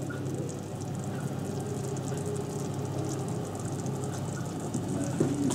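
Bitter-orange marmalade boiling in a pot, a soft steady bubbling and crackle over a low steady hum. The marmalade is near the end of its boil, close to setting point.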